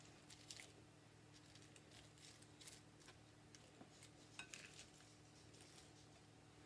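Near silence with faint, scattered soft rustles and light taps of hands placing lettuce and greens onto a rice-paper wrapper on a wooden board, over a low steady hum.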